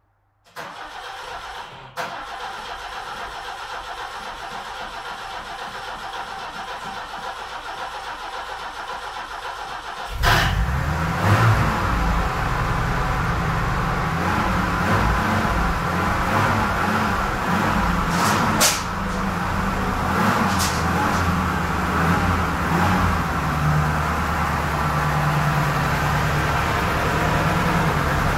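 BMW 2000 Neue Klasse four-cylinder engine started after long storage: a steady whirring, most likely the starter cranking, for about ten seconds, then the engine catches with a sudden jump in loudness and keeps running.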